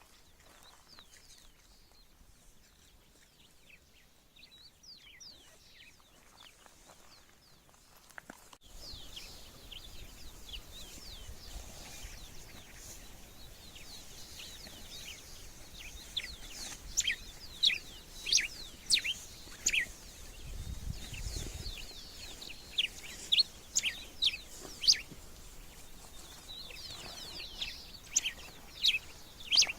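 Dawn chorus of small birds: many short, high chirps and quick descending calls overlapping. It is sparse and faint at first, then louder and busier from about eight seconds in.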